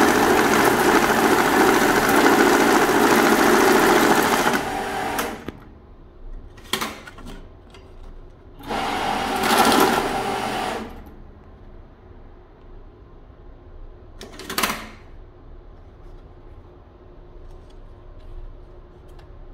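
Banknote counting machine running as it feeds and counts a stack of $100 bills, a loud continuous whir that stops about four and a half seconds in. After that come a few shorter bursts of sound, the longest lasting about two seconds near the middle.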